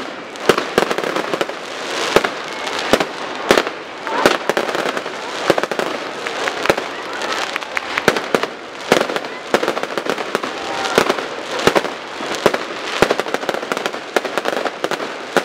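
Aerial fireworks display: irregular sharp bangs of bursting shells, roughly one or two a second, over continuous crackling.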